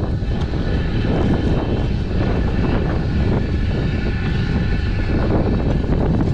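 A motor drones steadily, with wind rumbling on the microphone.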